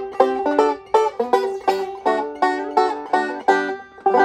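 Resonator banjo played as a demonstration of chords: plucked chords in a steady rhythm, about three a second, each with a sharp attack and ringing notes, moving through a changing chord progression.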